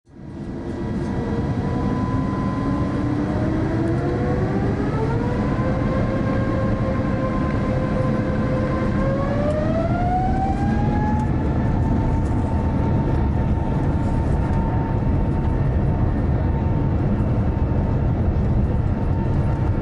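Rolls-Royce Trent XWB turbofan of an Airbus A350-900 spooling up to takeoff thrust, heard from inside the cabin: a whine that rises in pitch in two steps, first about two to six seconds in and again around nine to eleven seconds, then holds steady. Underneath is a steady low rumble as the aircraft accelerates down the runway.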